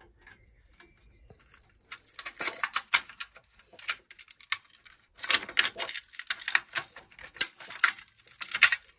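Metallic clicking and rattling as a screwdriver works the clamp screw of a motorcycle's chrome headlight trim ring and the ring is worked loose and lifted off. The clatter comes in two runs of quick clicks, starting about two seconds in, with a short pause just after the halfway point.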